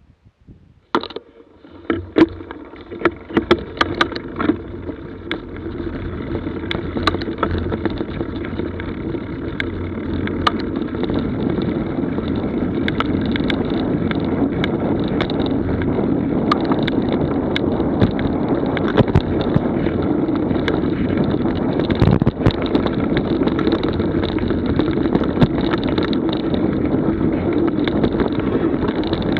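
Mountain bike setting off and riding a dirt forest trail: tyres rolling over dirt and leaves, with frequent clicks and rattles from the bike and wind rushing on the camera's microphone. The noise builds over the first ten seconds as the bike gets up to speed, then holds steady.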